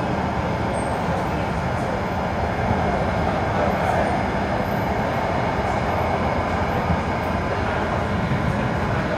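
Steady running rumble inside a C151 metro train car travelling along the track, with wheel and motor noise.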